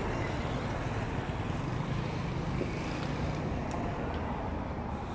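Steady street traffic noise, a continuous low rumble of vehicles on a town street.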